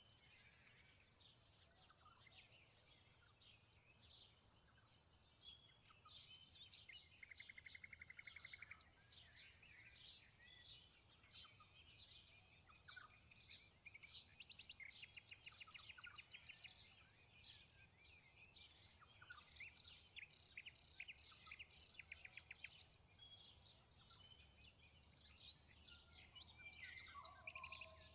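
Many songbirds chirping and calling at once, with a couple of rapid buzzy trills, over a steady high-pitched drone and a low rumble of wind.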